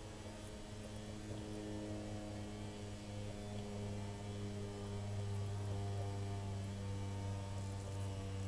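Steady electric hum from a model railway turntable's drive motor as the platform turns, growing a little louder about halfway through.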